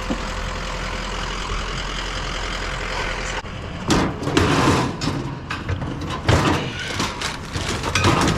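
A vehicle engine idling with a steady low hum, which stops abruptly about three and a half seconds in. It gives way to a run of irregular knocking, rustling and clattering as items are handled and moved.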